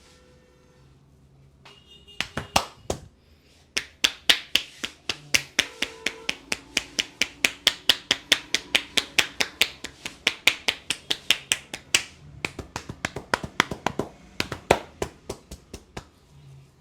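A barber's hands slapping a client in a fast percussive massage: sharp slaps at about four a second, starting about two seconds in, with a brief pause near four seconds, and stopping shortly before the end.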